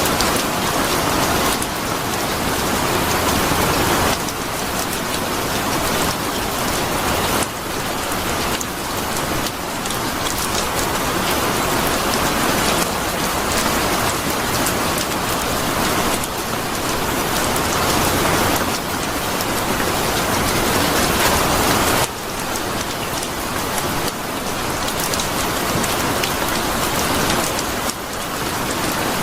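Steady rain falling on a surface, a dense even hiss with abrupt small shifts in level every few seconds.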